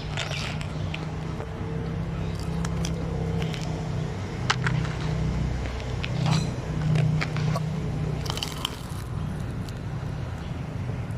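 A cat chewing and crunching food close to the microphone: irregular sharp clicks and crunches over a steady low rumble.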